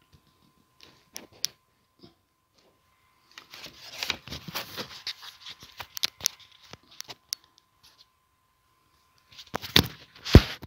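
Scattered clicks, then a few seconds of rustling and scraping handling noise, ending in two louder noisy bursts near the end, over a faint steady high tone.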